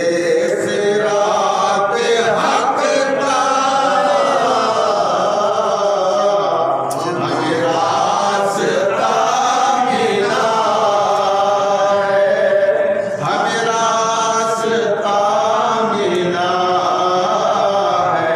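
Men's voices singing a manqabat, an Urdu Sufi devotional song in praise of a saint, in long chanted melodic phrases.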